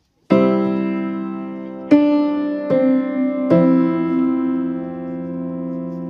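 Slow piano music: a chord struck four times, each left to ring and fade, the last one held for a couple of seconds.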